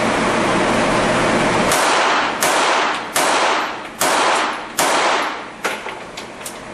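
Handgun fired at a steady pace: six shots about three-quarters of a second apart, each ringing off in a long echo, then a couple of fainter cracks near the end. A steady rushing noise comes before the first shot, about a second and a half in.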